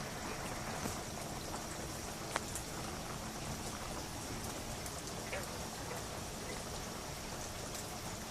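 Steady rain falling during a thunderstorm, a constant hiss with a few sharp drops ticking on a hard surface; no thunder is heard.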